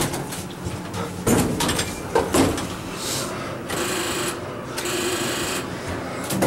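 Elevator car and door mechanism: a few knocks and clatters, then two stretches of whirring hiss with a faint steady hum as the car gets moving.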